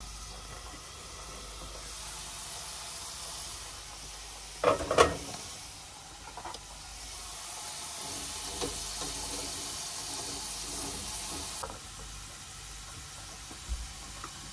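Potato fries deep-frying in hot oil in a wire mesh frying basket: a steady sizzle, with a loud clatter about five seconds in and a few lighter knocks as the fries are stirred. The sizzle cuts off sharply near the end.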